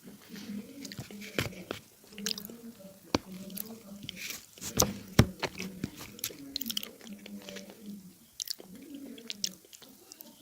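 Dry clay being bitten and chewed close to the microphone: a run of crisp crunches and cracks at uneven intervals, the loudest about five seconds in.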